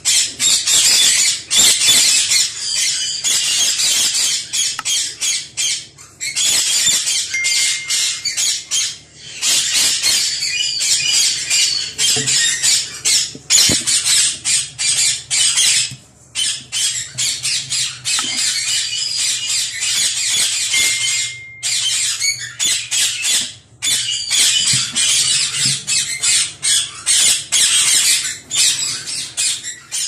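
A colony of Indian ringneck parakeets screeching: many harsh, high calls overlapping almost without a break, with a few short pauses.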